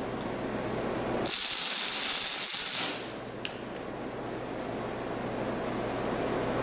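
A mechanical tool runs in one loud, hissing burst of about a second and a half, starting about a second in, over a steady low hum.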